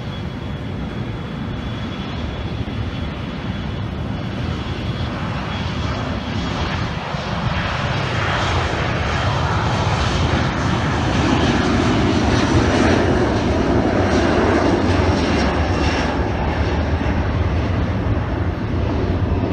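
Southwest Boeing 737's twin jet engines at takeoff power during the takeoff roll. It is a rushing engine noise that builds over several seconds, is loudest a little past the middle and eases slightly near the end, with a faint high whine on top.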